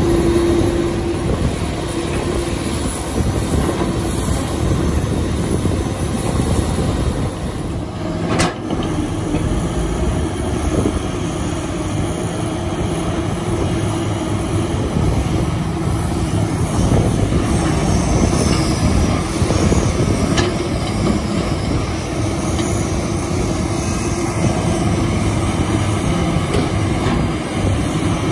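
Large crawler hydraulic excavators running their diesel engines while digging and loading, a continuous heavy machine sound. It breaks abruptly about eight seconds in.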